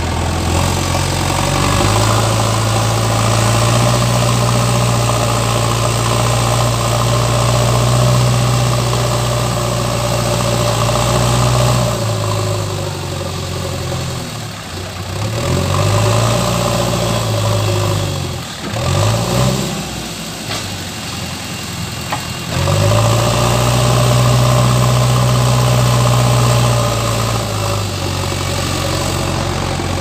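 JCB backhoe loader's diesel engine working the front bucket in sand, revving up and holding high revs, dropping back toward idle with several quick rises and falls in the middle, then revving up again and falling back near the end.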